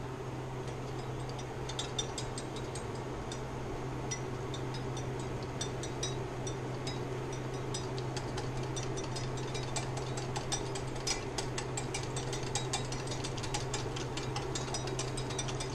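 Wire whisk clicking rapidly and irregularly against the side of a bowl while stirring a thick powdered-sugar glaze by hand; the clicks come thicker in the last few seconds. A steady low hum sits underneath.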